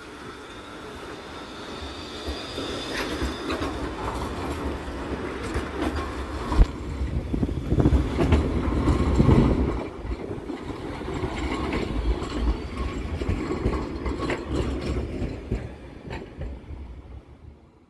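Pesa Swing low-floor tram passing close by and pulling away over a track junction: wheels clattering and knocking over the rail crossings. It is loudest about eight to nine seconds in, then fades as it recedes.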